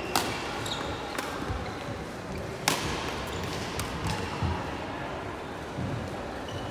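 Indoor sports hall sounds between badminton rallies: a few sharp knocks on the wooden court, the loudest about two and a half seconds in, with brief faint shoe squeaks over the echoing hall background.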